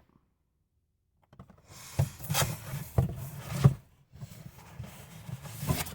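Dead silence for about a second, then rubbing and rustling with a few sharp knocks, as of things being handled close to the microphone.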